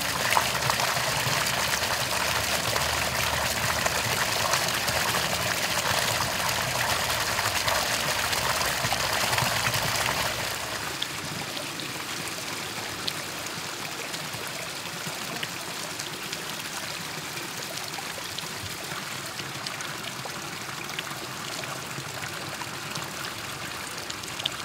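Water pouring from a carved stone fountain spout and splashing into a stone basin. About ten seconds in it drops to a softer, more distant splashing.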